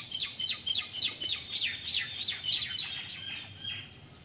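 A bird calling: a rapid run of short, falling chirps, about five a second, easing off near the end.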